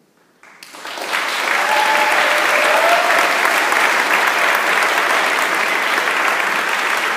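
Audience applauding. The clapping starts under a second in, swells quickly and holds steady.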